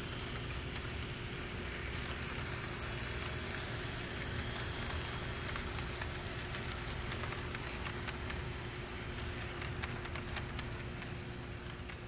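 HO-scale model freight train rolling past, its wheels running on the rails with a steady hiss and a faint hum. Light clicks come in over the last few seconds as the hopper cars pass, and the sound fades near the end.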